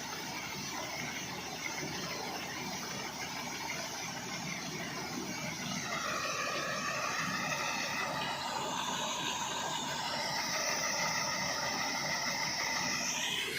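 Combine harvester running steadily. About halfway through, a high whine with several tones joins in, rising in pitch near the end.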